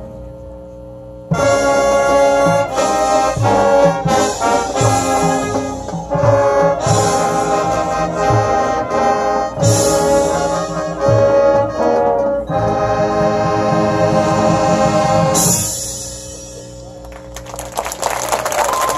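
Marching band brass playing sustained chords over regular bass drum strokes, starting after a short pause about a second in and stopping about fifteen seconds in. Near the end a steady rush of noise rises.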